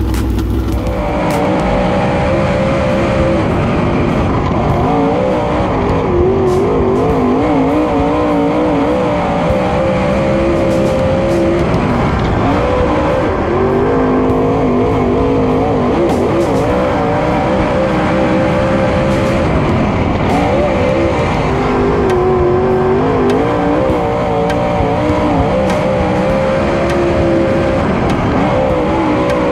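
Super Late Model dirt race car's V8 engine at racing speed, its pitch rising and falling every few seconds as the throttle opens and closes.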